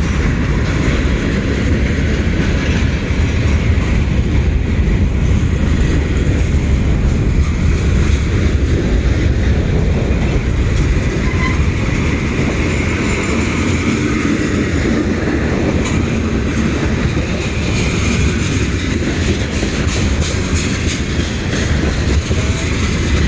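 Freight cars of a slow-moving freight train rolling past close by: a steady loud rumble of steel wheels on the rails, with rhythmic clacking over rail joints that turns sharper in the second half, and a faint wheel squeal.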